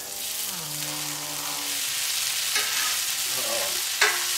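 Tater tots with onion and bell pepper sizzling on a hot steel flat-top griddle as a metal spatula turns and chops through them. The spatula scrapes the plate and strikes it with a sharp clack about four seconds in.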